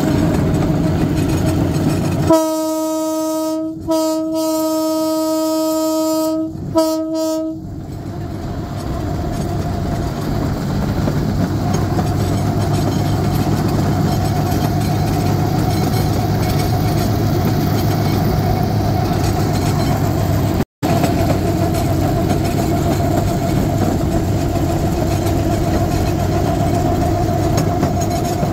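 A one-note horn blows about two seconds in: a long blast, a longer one, then two short toots. After that the railcart's small engine runs steadily as the cart rolls along the rails.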